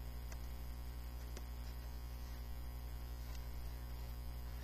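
Steady low electrical mains hum, with a few faint clicks from a hand handling a board-book page.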